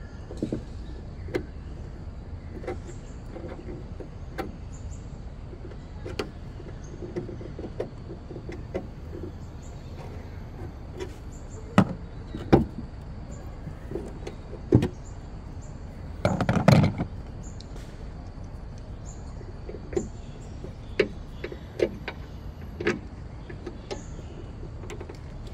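Sharp clicks and knocks of Volvo XC90 bonnet gas struts being handled, their end fittings unclipped from and snapped onto the mounting studs. A louder rattling clatter comes about two-thirds of the way in, over a steady low rumble.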